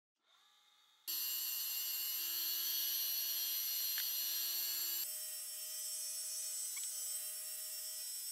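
High-speed spindle of a pantograph engraving machine running while its small cutter engraves a plate. It is a steady high whine with many fixed tones, starting about a second in and changing abruptly in pitch and level about five seconds in.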